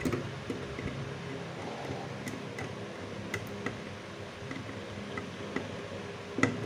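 Small screwdriver tightening the line-wire terminal screw on a plastic modular socket: scattered light ticks and clicks of metal on the screw and plastic, with a sharper click near the end, over a steady low hum.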